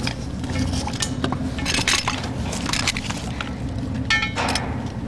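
Scuba gear being handled and assembled: scattered clicks, scrapes and clatter of metal fittings and hoses as a regulator is fitted to a tank, with two short noisy bursts, over a steady low rumble.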